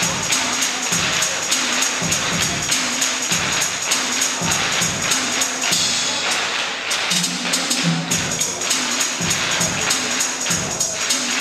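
Irish dance music playing, with a steady rhythm of sharp shoe taps from a line of Irish dancers striking the floor in time.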